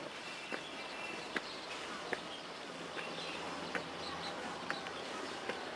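Footsteps at a walking pace, about one step every 0.8 s, over a steady outdoor background with faint chirping.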